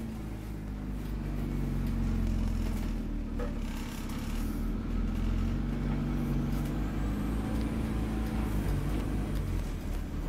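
Scania OmniCity N230UD double-decker bus's five-cylinder diesel engine heard from inside the upper deck while the bus is under way: a steady low drone that shifts in pitch a few times.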